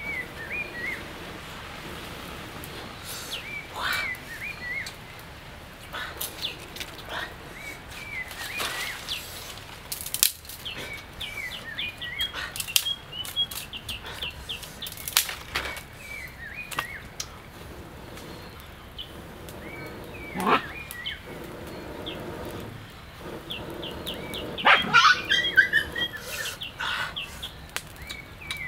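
Forest birds chirping in short repeated phrases, with sharp cracks and rustling now and then as dry twigs are snapped and handled on a small campfire.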